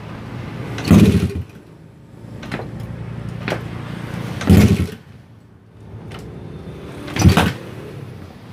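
Suzuki Satria FU drag bike's high-compression four-stroke single, bored up with a 70 mm piston, being kick-started: three kicks about three seconds apart, each bringing a loud bang as the engine fires without catching. The engine is hard to start because of its high compression, which makes it kick back.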